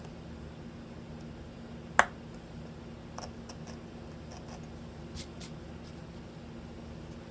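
Carving knife cutting into oak by hand: one sharp snap of a chip about two seconds in, then several lighter ticks and scrapes, over a steady hum.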